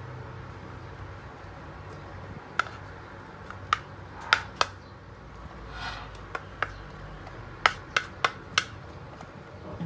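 Kitchen utensils knocking sharply, about ten separate clicks at an uneven pace, over a low steady hum.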